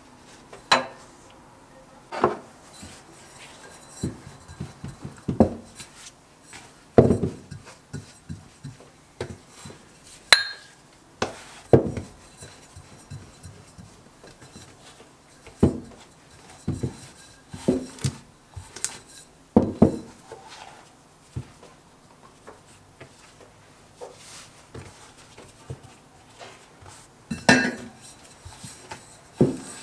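Irregular knocks and light clatters, one every second or two with a louder cluster near the end: a rolling pin and hands working salt-bread dough flat on a silicone baking mat on a hard counter.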